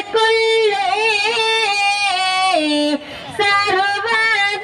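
A high voice singing a slow melody in long held notes with wavering ornaments and steps in pitch, with a short break about three seconds in.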